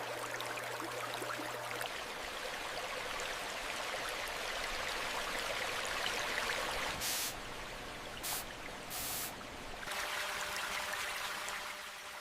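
Water running steadily, with fine droplet ticks through it, and three short bursts of hiss past the middle.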